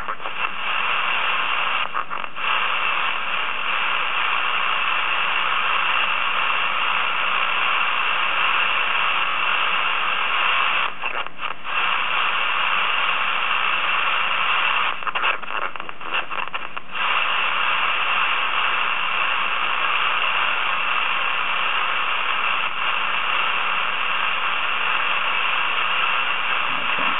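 Steady radio static hissing from the laptop's speakers: an RTL2832 SDR dongle running SDR#, demodulating AM on the aviation band with no voice transmission on frequency. The hiss briefly drops out a few times.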